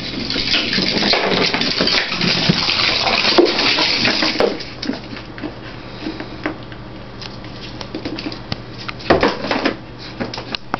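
Clattering and scraping for about the first four seconds, then scattered light clicks and taps of a puppy moving about on a vinyl kitchen floor.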